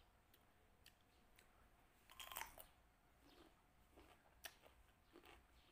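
Faint crunchy chewing of a raw Japanese cucumber: scattered soft crunches, with a slightly louder bite or chew about two seconds in.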